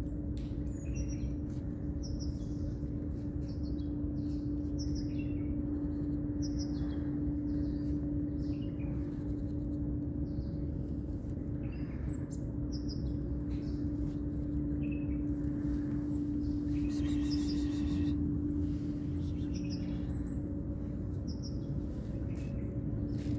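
Small birds chirping, short high chirps repeating about once a second, over a steady low hum and rumble.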